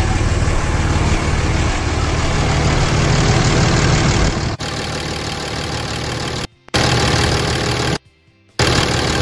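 Dodge Ram 3500's 5.9 Cummins turbodiesel inline-six idling just after starting on a freshly changed fuel filter. It runs steadily, and the sound changes abruptly about four and a half seconds in, then cuts out briefly twice in the second half.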